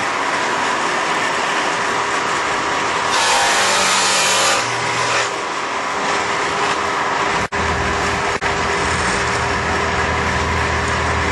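Shopsmith table saw running with a dado blade, its motor whining steadily. About three seconds in, the blade cuts a groove through the wood and the sound gets louder and brighter for about a second and a half.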